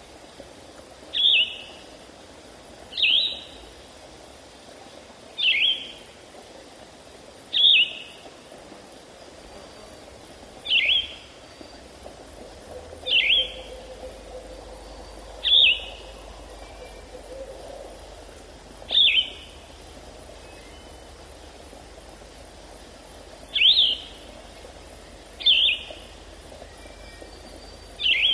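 A bird repeating a short, sharp, downward-sliding call about a dozen times, every two to four seconds, over a steady high-pitched hiss of insects.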